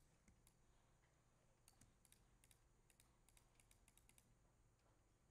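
Faint clicking at a computer, about a dozen quick clicks in uneven runs, most of them between about one and a half and four seconds in.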